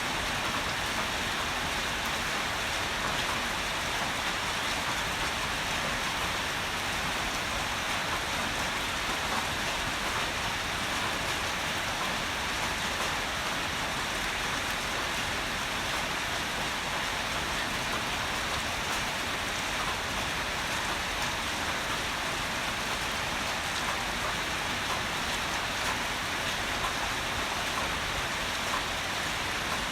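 Heavy rain falling steadily, an even hiss of drops on surfaces with no thunder.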